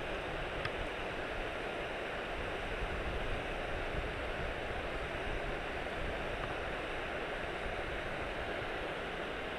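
Steady outdoor rushing noise of wind and small waves on open water, even throughout with no distinct events.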